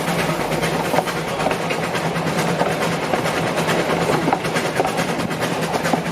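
Narrow-gauge railway train running along, with a steady rumble and a dense, irregular rattle and clicking of wheels and carriage.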